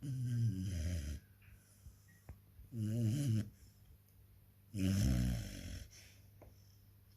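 Sleeping Rottweiler puppy snoring: three pitched snores about two seconds apart, each with a breathy rasp.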